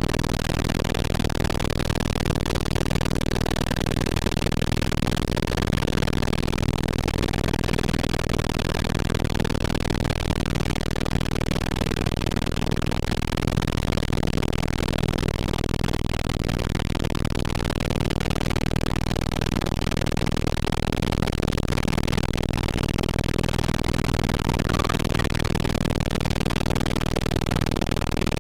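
Helicopter rotor and engine noise, a steady, even drone with a low hum under a broad rush.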